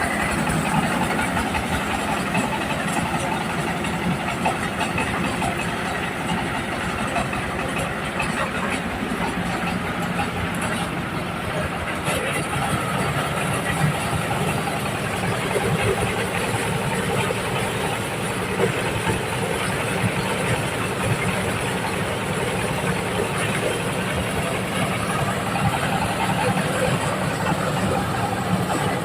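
Diesel-powered corn sheller running steadily: the engine's fast low chugging under a continuous rattling mechanical noise.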